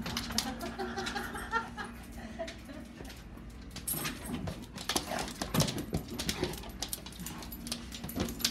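A dog whining in a high, wavering pitch for about two seconds near the start, followed by a scatter of sharp knocks and clatters.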